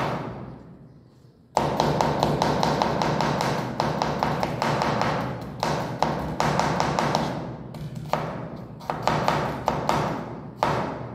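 Kitchen knife chopping onion on a wooden cutting board in a fast run of taps, which stops briefly about a second in and then starts again. Music plays in the background.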